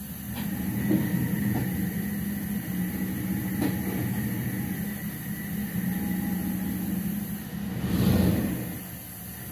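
Toyota 1UZ-FE V8 engine running steadily at low speed as the car creeps under its own power, with a brief rise and fall in revs about eight seconds in. The engine is on only a rough base tune.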